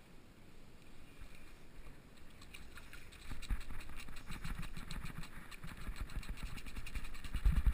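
Wind rumbling on the microphone and water lapping against the plastic kayak hull, getting louder about three seconds in, with a fast run of faint ticks over it.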